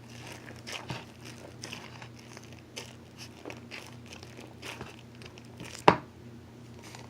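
Sticky, bubbly fluffy slime being handled, giving irregular small crackles and pops, with one sharp, louder pop about six seconds in.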